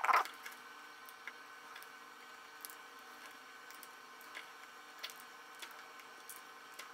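Hobby knife blade cutting into a plastic Lego part to split it apart: a louder scrape right at the start, then faint, irregular small clicks and scrapes of the blade in the plastic.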